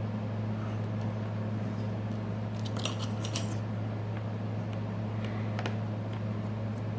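Small metal clicks and ticks of a tool working the tiny screws in a smartphone's frame, a quick cluster about three seconds in and one more near the end, over a steady low electrical hum.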